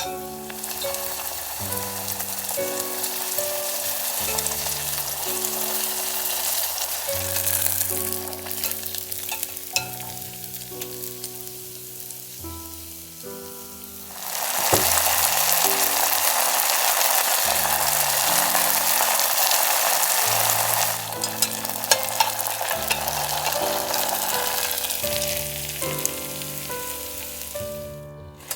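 Gim-bugak, seaweed sheets coated in glutinous rice paste and dried, deep-frying in hot oil with a steady crackling sizzle. It gets clearly louder about halfway through, eases somewhat later, and fades near the end.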